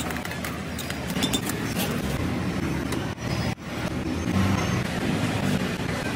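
Steady street traffic noise, with a few light clicks in the first couple of seconds and a brief dropout about three and a half seconds in.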